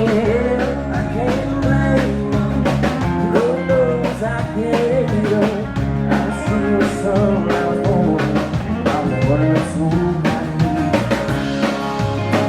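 A live band playing a song: drums keep a steady beat under guitar chords, with a lead melody sliding up and down in pitch over them.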